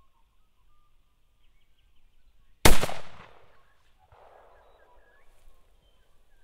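A single shotgun blast a little under three seconds in, ringing out briefly before it fades. Small birds chirp faintly around it.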